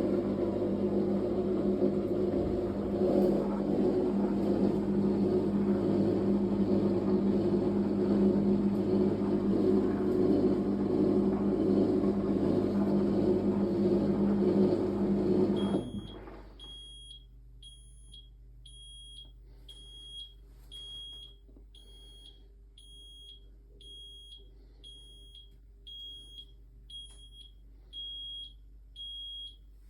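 Fisher & Paykel MW059NZ washing machine running loudly with a steady low hum, then stopping abruptly about halfway through. After that it beeps a high single tone about once a second: the end-of-cycle signal.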